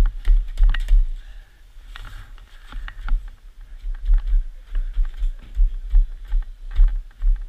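Irregular clicks and knocks of gloved hands picking and knocking at ice packed around a snowmobile's front bumper and grille, over a low pulsing rumble.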